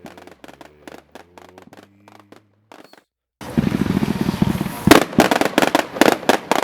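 Winda Audio Graffiti 350-gram firework cake firing its shots, at first as scattered quieter reports. Just past halfway it turns into a loud, dense run of rapid shots and bursts: the multi-shot finale.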